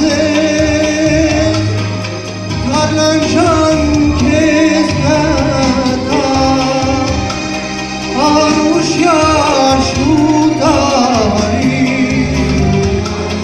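A man singing through a handheld microphone over instrumental accompaniment, his voice wavering and sliding ornamentally between notes.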